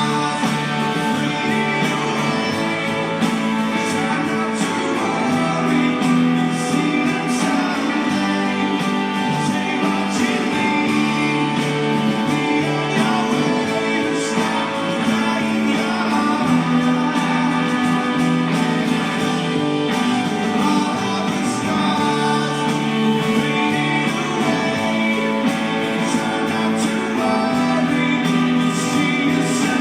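Live rock band playing with strummed guitars and steady held chords.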